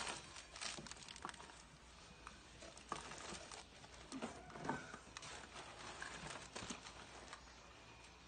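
Hands rummaging through a packed cardboard box: scattered light knocks, scrapes and plastic rustles as packed goods are shifted.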